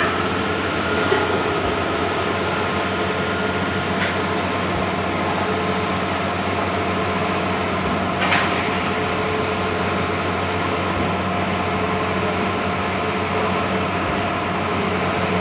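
Bluewin large-format outdoor digital printer running: a steady mechanical whir with a constant hum, with a brief click about four seconds in and another about eight seconds in.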